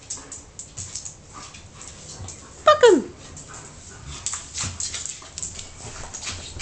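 A beagle and a galgo play-fighting on a wooden floor, with paws and claws scuffling and clicking. About three seconds in, one dog gives a short, loud yelp that drops sharply in pitch.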